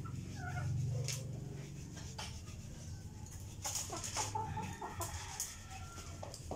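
Chickens clucking in short calls, over a low steady hum, with a few sharp clicks.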